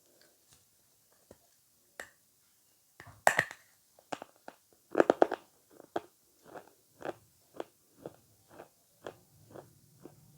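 Close-miked eating of avocado: a couple of loud bites about three and five seconds in, followed by steady chewing at about two chews a second.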